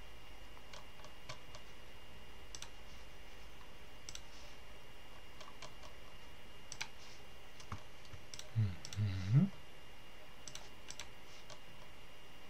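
Scattered single clicks of a computer mouse, about a dozen, over a faint steady high-pitched whine. About nine seconds in there is a brief wordless hum from a man's voice.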